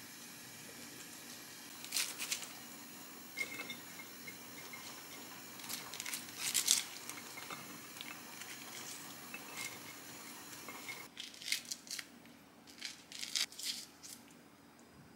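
Crisp shredded cabbage and lettuce rustling as they are tipped and shaken out of a plastic colander onto a plate, in short scattered crinkly rustles. A quicker run of soft crackles comes near the end.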